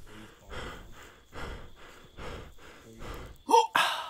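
Heavy breathing, a soft breath about every 0.8 seconds. Near the end comes a short squeaky pitched sound, then a louder, sharper breath.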